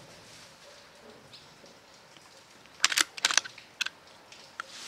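A quick cluster of sharp mechanical clicks about three seconds in, then one more click: the action of a BSA Super10 pre-charged air rifle being cycled to load the next pellet after a shot.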